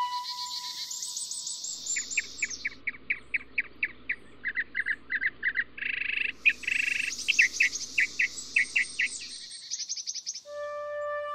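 Birds singing: a steady series of sharp chirps, about three a second, over high, rapid trills that come at the start and again in the second half.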